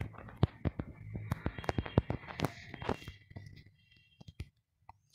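Key-press clicks of typing on a smartphone's on-screen keyboard: a quick, uneven run of about fifteen taps, three to four a second, that stops about four and a half seconds in.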